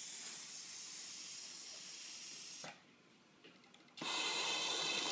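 Industrial cylinder-arm overlock sewing machine (two-needle, four-thread) running at speed while stitching swimwear fabric. It stops for about a second midway, then starts sewing again, louder.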